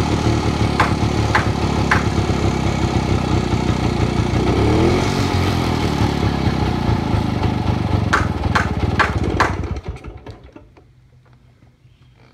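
1952 Zündapp motorcycle's small-displacement two-stroke engine idling low and warm, with a slight rise in revs about five seconds in. A few sharp ticks come near the end, then the engine stops.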